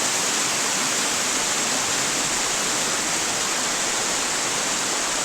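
Waterfall rushing: a steady, even hiss of falling water that doesn't change.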